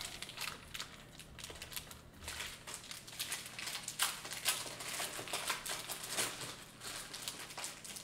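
Irregular rustling, crinkling and small clicks of hands handling a pack of plastic card sleeves at a table.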